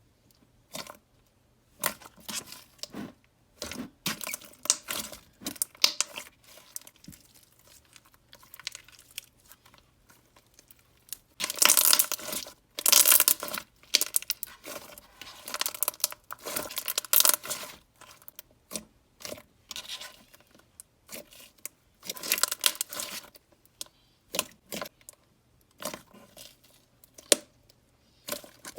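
Thick, glossy slime topped with foam beads being squished, poked and stretched by hand, making irregular bursts of sticky crackling and crunching. It is loudest a little before halfway and again about two-thirds of the way through.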